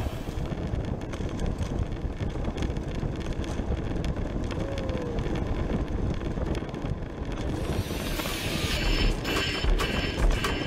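Wind buffeting the microphone of a camera riding on a moving bicycle, with rumble from the road. Near the end, a run of sharp clicks and rattles from the bike comes in over a brighter hiss.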